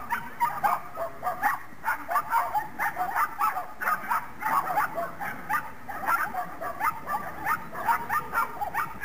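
A dog yapping excitedly and nonstop, short high-pitched barks at about three a second.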